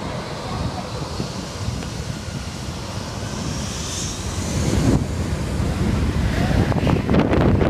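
Four-engine Airbus A340 airliner throttling up for takeoff: a rumbling jet noise with a high whine rising in pitch. From about five seconds in the jet blast reaches the microphone as loud, gusty wind buffeting.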